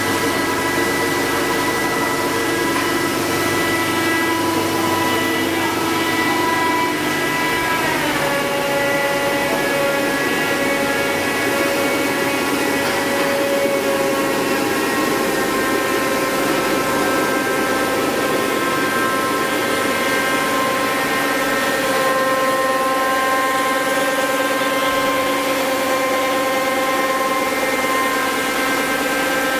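HQ-90 single-screw plastic pelletizing line running: a steady machine drone with several held whining tones, which drop in pitch together about eight seconds in.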